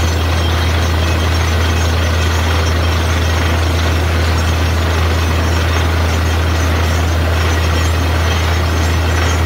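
Borewell drilling rig running steadily: a heavy engine's deep, even drone with a constant noisy rush over it.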